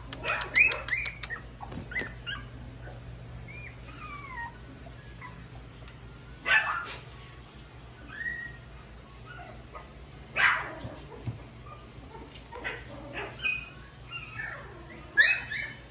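Young puppies whining and yipping in short high-pitched cries: a quick run of yelps in the first second or so, then scattered single whines and yelps, the loudest about six and a half, ten and a half and fifteen seconds in.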